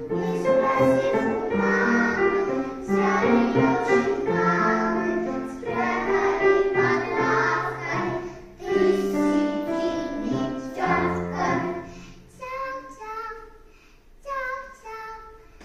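A small choir of young children singing a song together to musical accompaniment. About twelve seconds in, the sound thins out and gets quieter, with only a few separate notes near the end.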